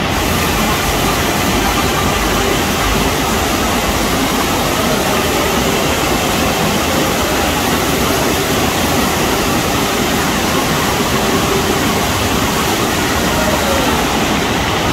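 Loud, steady rush of water from a FlowRider surf simulator, its pumped sheet of water pouring up the slope beneath a bodyboarder.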